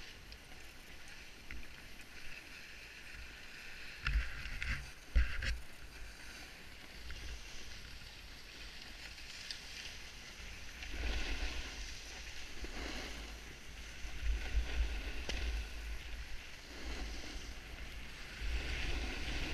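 Wind buffeting a helmet-mounted camera's microphone during a run down a packed-snow ski slope, in uneven gusts of deep rumble with the hiss of snow scraping under the rider; the hardest buffets come about four to five seconds in and again in the second half.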